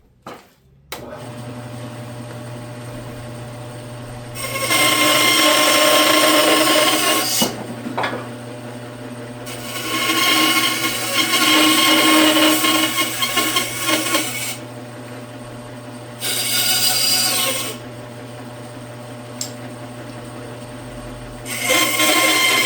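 Electric scroll saw starting up about a second in and running with a steady hum, its blade cutting through wood in four loud stretches with quieter idle running between them.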